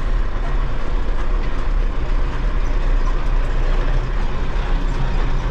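Tractor diesel engine running steadily.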